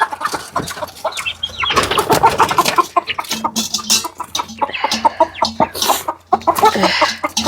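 A flock of chickens clucking and squawking, many short calls overlapping.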